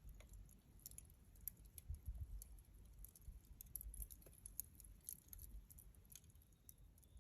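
Near silence with faint, scattered ticks and clicks at irregular intervals.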